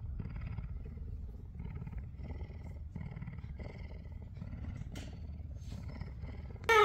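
A big cat calling in a run of repeated low, pulsing roars, a few calls every couple of seconds.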